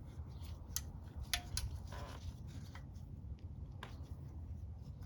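Handling noises from sorting the motorcycle's wiring: a few separate sharp clicks and a short scrape over a low steady hum.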